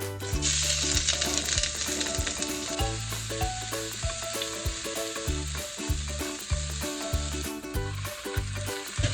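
Green onion and green pepper sizzling as they stir-fry in a pan. The sizzle comes in about half a second in and drops lower near the end, over background music with a steady beat.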